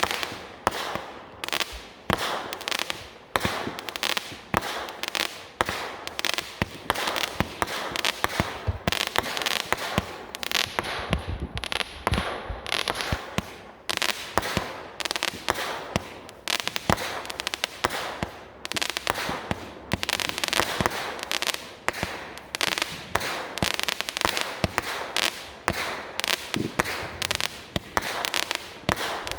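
Consumer fireworks going off in quick succession: a long, dense run of sharp bangs and crackles, several a second.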